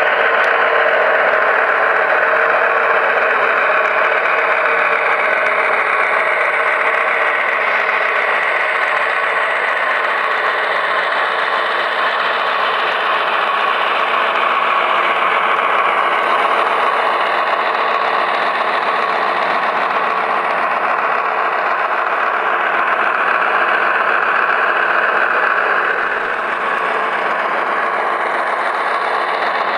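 Diesel engine sound from a model locomotive's SoundTraxx Tsunami DCC sound decoder, played through its small onboard speaker while the model runs. The engine sound runs steadily, a little quieter after about 26 seconds.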